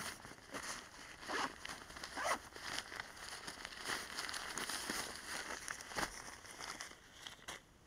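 Fabric rustling and crinkling as a folded tarp tied with green cord is stuffed and pressed into the top of a backpack, in a run of irregular scrunching noises. It quietens near the end.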